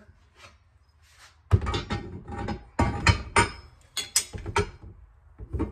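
A run of sharp metal knocks and clanks as the freshly bent chevron piece is fitted and tapped against the springer fork leg. The knocks start about a second and a half in and stop shortly before the end.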